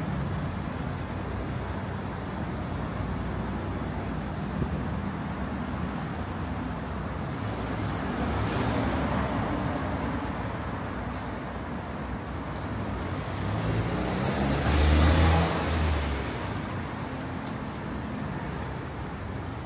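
Street traffic with two vehicles passing close by, about eight seconds in and about fifteen seconds in; the second is louder, with a low engine rumble as it goes past.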